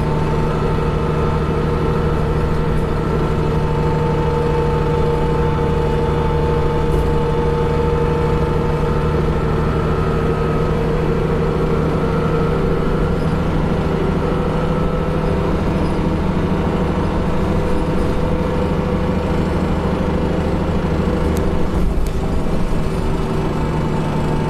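City bus heard from inside the passenger compartment while under way: the engine and drivetrain keep up a steady drone with a few faint whining tones that drift slightly in pitch. There is a brief louder noise about 22 seconds in.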